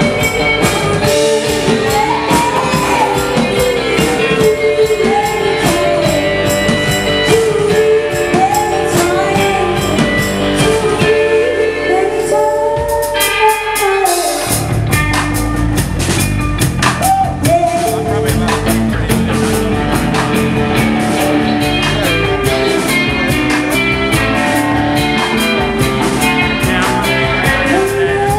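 Live alternative rock band playing, with a singer holding gliding notes over guitar in the first half. About twelve seconds in, the bass drops out briefly, and just past halfway the full band with drums comes back in.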